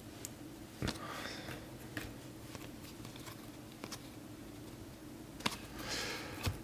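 Faint handling of trading cards: soft rustles of cards sliding past one another and a few light clicks as they are flipped, over a low steady room hum.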